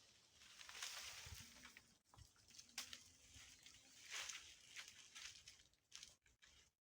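Faint, scattered rustling swishes, a few seconds apart, over near silence.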